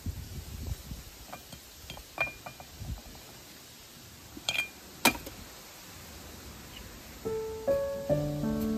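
A few light clinks and taps with brief ringing over a low rumble, the two sharpest about four and a half and five seconds in. Soft piano music starts about seven seconds in.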